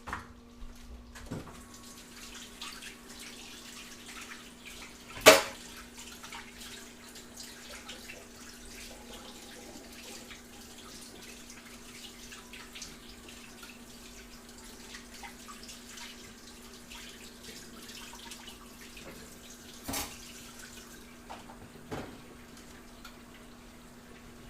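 Kitchen tap running into a sink for most of the stretch, shut off near the end. There is one sharp loud knock about five seconds in and two lighter knocks near the end.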